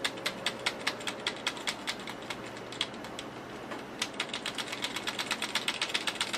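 A key on a wireless computer keyboard is tapped rapidly and repeatedly, about five or six clicks a second, to get into a freshly powered-on PC's BIOS setup. The tapping pauses briefly in the middle and then resumes, over a faint steady hum.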